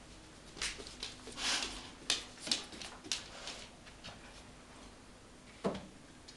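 Golden retriever moving about right at the microphone: a quick string of short noisy sounds over the first three seconds or so, then a single sharp knock near the end.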